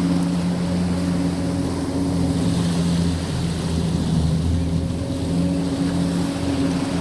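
Boat engine running at a steady speed: a constant low hum with a few steady tones over a wash of noise.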